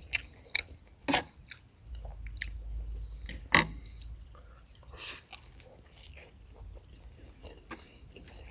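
Close-up chewing and biting of stir-fried beef, with a few sharp clicks, the loudest about a second and three and a half seconds in, over a steady high-pitched whine.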